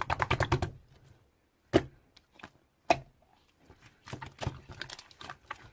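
Sharp taps and clicks: a quick run of them at the start, two single loud knocks about a second apart, then more scattered clicks near the end.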